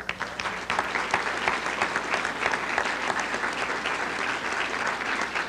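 Audience applauding, a dense steady clapping that starts abruptly and carries on throughout.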